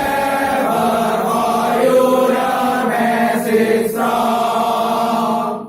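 A group of voices singing a march together in unison, holding long notes, until the singing stops sharply near the end.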